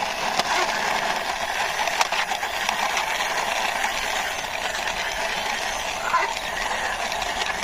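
Plastic toy car pushed along by hand, its wheels rolling with a steady rattling hiss and small clicks.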